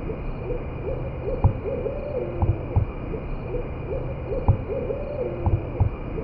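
A weird howling: a phrase of short hooting notes repeats about every three seconds, each time with a few low thumps, over a steady background hum.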